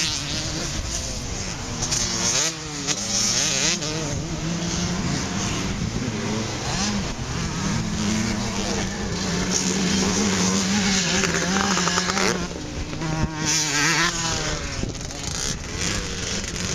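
Vintage motocross motorcycles racing, with several engines running together and their pitch rising and falling as the riders rev and ease off.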